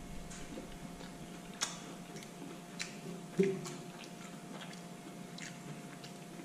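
Close-miked chewing of food, with scattered wet mouth clicks and smacks, over a faint steady hum.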